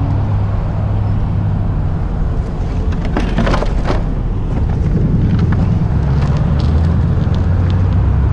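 A vehicle engine idling with a steady low hum, with road noise over it. A brief rattling clatter comes about three to four seconds in, as a dropped sport motorcycle is hauled back upright.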